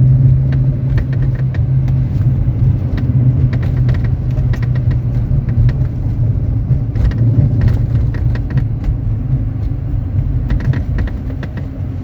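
Steady engine and road drone inside a moving 2016 Dodge Challenger R/T with a 5.7 Hemi V8, broken by many short creaks and clicks from the driver's seat, bunched in spells around the middle and near the end. The seat creak is a new fault in a car that had been rattle-free.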